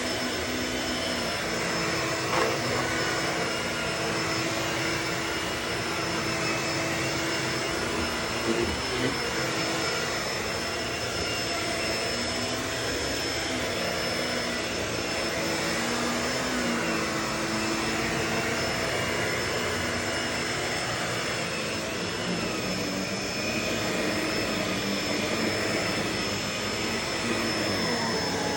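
Vacuum cleaner running steadily, its motor whine slowly shifting in pitch, with a few sharp clicks about two and nine seconds in.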